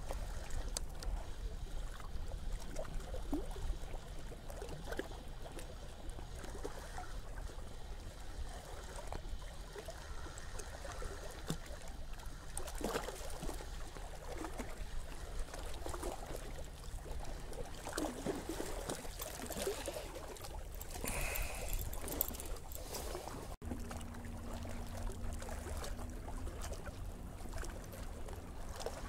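Small waves lapping and trickling at a rocky shoreline, under a steady low rumble of light wind on the microphone.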